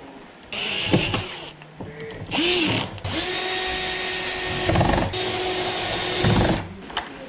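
A small electric power-tool motor, drill-like, spins up briefly twice, then runs at a steady pitch for about three and a half seconds before stopping.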